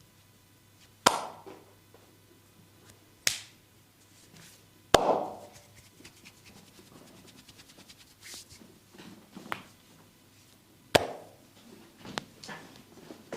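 Sharp slaps and snaps of a barber's hands on skin during a massage: four loud cracks a few seconds apart, with softer taps between them.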